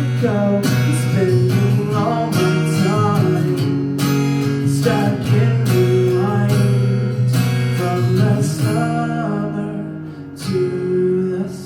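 Live band playing the instrumental close of a soft rock song, led by strummed acoustic guitar chords. The playing thins out near the end, and a last strum rings out and fades.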